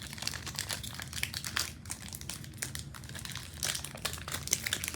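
Foil wrapper of a Pokémon trading card booster pack crinkling as it is handled and opened: a steady run of small crackles.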